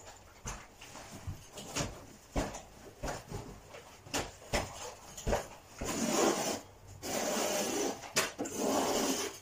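Carpet fitting by hand: scattered knocks and taps of tools against the floor, then two longer scraping stretches in the second half as the carpet edge is trimmed and worked along the skirting board.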